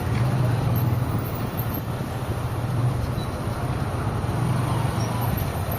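Steady road traffic noise from a car being driven: a continuous low engine hum under an even wash of tyre and street noise.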